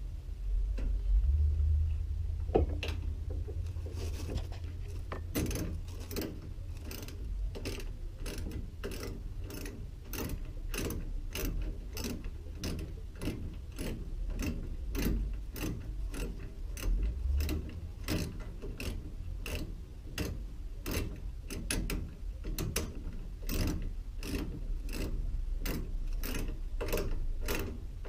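Ratcheting screwdriver clicking in a steady rhythm, about two or three clicks a second, as screws are driven into the washer's cabinet panel.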